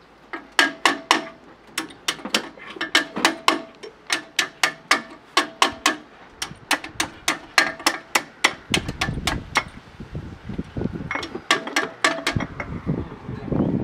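A metal tool striking metal in a car's engine bay: quick runs of sharp metallic taps, about three or four a second, each with a short ring. A low rumbling noise comes in about two-thirds of the way through.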